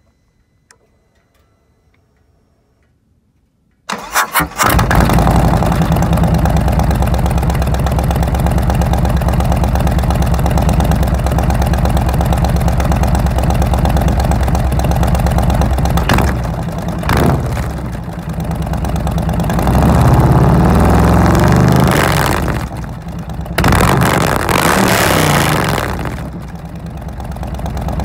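Harley-Davidson Milwaukee-Eight 107 V-twin starting about four seconds in, after a few near-silent seconds, then idling loudly through a Samson true dual fishtail exhaust with the baffles removed and torque cones fitted. Past the middle the throttle is blipped twice quickly, then revved up twice for a couple of seconds each before the engine drops back to idle.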